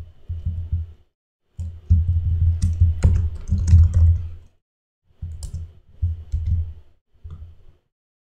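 Typing on a computer keyboard: fast runs of keystrokes broken by short pauses, each key press landing with a dull thud.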